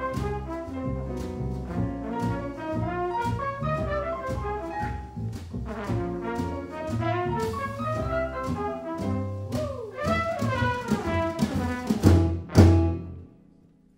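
Jazz quartet of trumpet, piano, double bass and drums playing the end of a piece, closing on a loud final hit about twelve and a half seconds in that rings out and fades to near silence.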